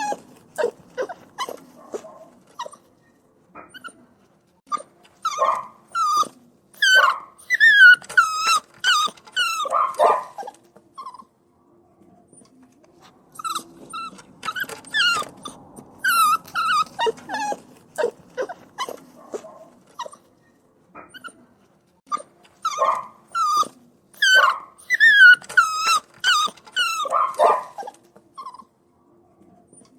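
Puppy whining and crying: runs of short, high-pitched whimpers, many falling in pitch, coming in three bouts of several seconds with brief pauses between.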